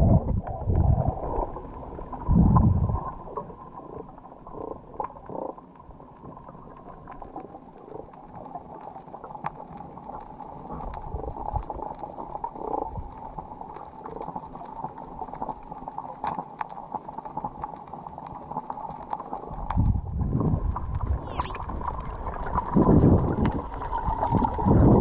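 Muffled underwater sound picked up by a GoPro inside its waterproof housing: a dull water rumble with scattered faint clicks. Louder low thumps and water movement come in the first couple of seconds and again over the last few seconds.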